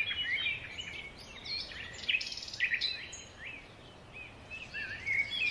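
Small birds chirping and calling, many short quick chirps that glide up and down in pitch, over a faint steady background hiss.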